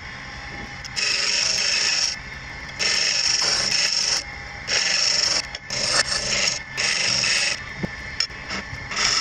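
Wood lathe spinning a small wooden spindle while a turning chisel cuts it: a loud hissing scrape of the cuts, in about six passes of a second or so each, separated by short lulls where only the lathe's low hum remains.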